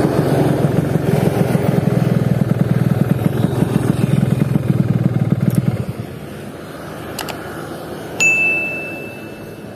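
Two-stroke Yamaha RX King motorcycle engine running close by with a fast, even pulsing exhaust, dropping away suddenly about six seconds in. Near the end, a bright bell-like ding rings with a held high tone: the sound effect of a subscribe-button animation.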